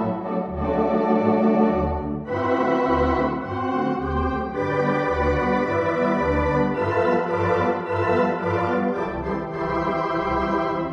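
Organ music: sustained chords over low bass notes that pulse about once a second.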